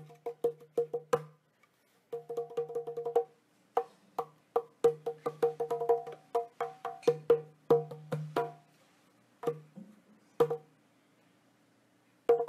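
Improvised wooden percussion: quick runs of dry knocks, each with a short pitched ring, thinning out to a few single strikes in the last few seconds.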